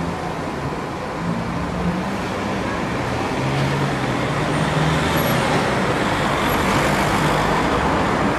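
Road traffic: a steady rush of vehicle engines and tyres with a low engine hum, growing a little louder about halfway through.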